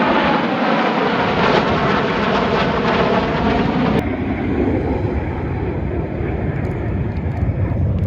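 An airplane's engine running loudly as it passes, its pitch slowly falling. About halfway through the sound cuts abruptly to a lower, steadier rumble.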